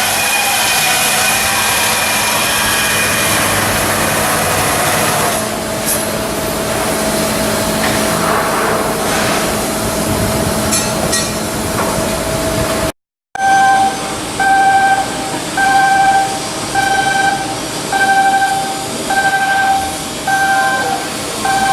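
Shipyard machinery noise with a steady hum and a held tone, then, after a brief cut, a pitched electronic warning beep repeating about once every 0.8 seconds.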